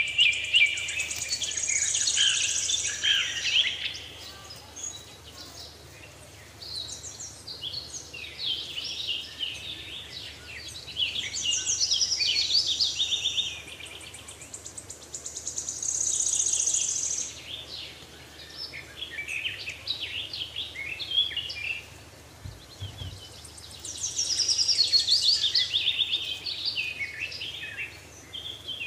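Small songbirds chirping and trilling in short bouts a few seconds apart, with fast high-pitched trills.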